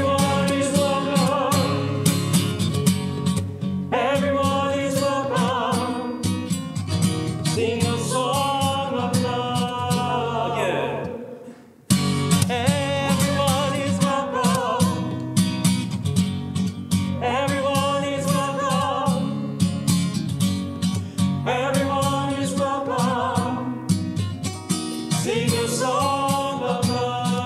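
A congregation singing a short refrain in parts, with strummed acoustic guitar, twice through with a brief break about halfway.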